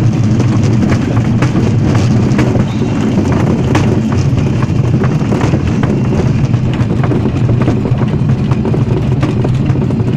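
Taifun 17 motorglider's piston engine and propeller running steadily, heard loud inside the cockpit. Scattered sharp ticks and knocks sound over the drone.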